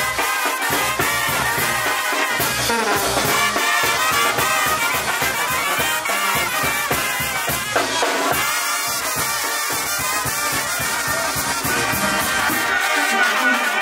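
Live brass band playing: trumpets carrying the tune over a sousaphone bass line.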